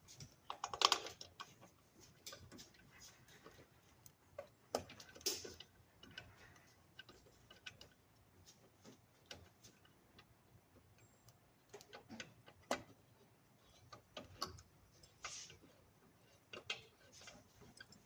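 Scattered clicks, taps and short clatters of parts being handled and fitted back onto a belt sander, with louder knocks about a second in, around five seconds and near thirteen seconds.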